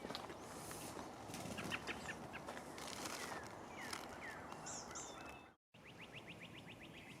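Wild birds calling outdoors: short chirps and whistled notes over a steady background hiss. After a sudden break about five and a half seconds in, a rapid trill of quick repeated notes.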